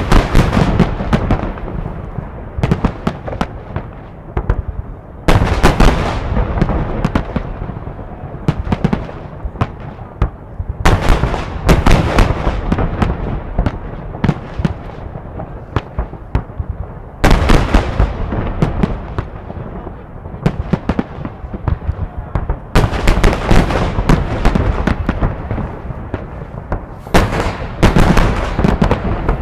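Fireworks salute fired in volleys: five clusters of sharp booming and crackling shell bursts, one about every five to six seconds, each trailing off into an echoing rumble.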